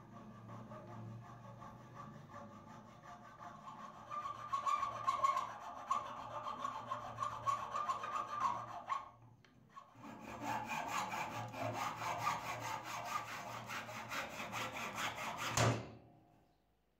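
Round file rasping across a hardwood axe handle, cutting grooves stroke by stroke. After a short pause a second run of rapid back-and-forth strokes on wood, ending in one sharp crack near the end.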